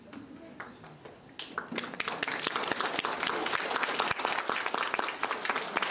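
Audience applauding, dense clapping that starts about a second and a half in and swells to a steady level.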